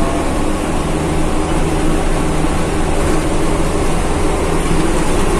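Cabin noise inside a Mitsubishi-engined bus under way: a steady low engine drone with road noise.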